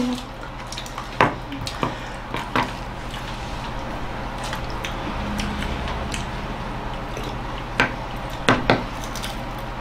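A few light clicks and knocks of dishes and a plastic bottle being handled and spun on a tabletop, over a steady low hum.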